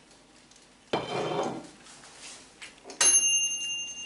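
A short rough handling noise about a second in, then a sharp metallic ding that keeps ringing: the bell of the Tristar air fryer's mechanical timer as it is turned to off.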